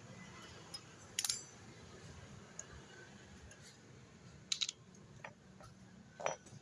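Small metal parts clinking as they are handled and set down during a motorcycle engine teardown: a few separate sharp, ringing clinks, about a second in, twice around four and a half seconds, and once just before the end.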